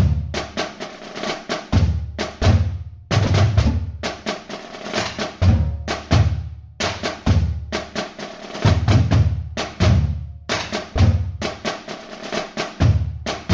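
Drum music: a drum kit playing busy patterns of snare hits and rolls over repeated bass drum thumps.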